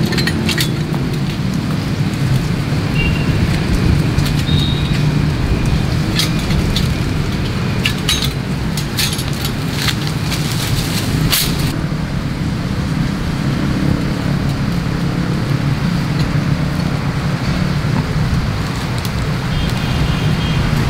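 A bundle of metal swords clinking and clanking as it is handled, in scattered sharp clicks, over a steady low rumble like traffic noise.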